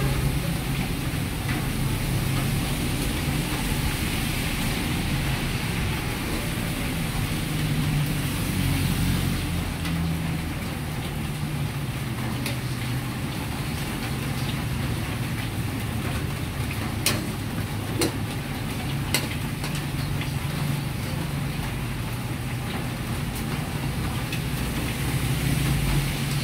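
Steady roar of a commercial kitchen's gas wok burners and fans, with a low hum. Three sharp metal utensil clinks come a little past halfway through.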